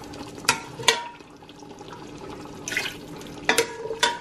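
Broth being ladled into a stainless steel stockpot of beef: a few sharp metal clinks that ring briefly, twice early on and a quick cluster near the end, with a short splash of pouring liquid between them.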